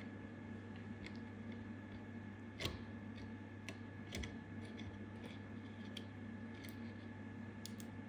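Scattered light clicks and ticks from small parts of an opened circuit breaker being handled, the loudest about two and a half seconds in, over a steady electrical hum.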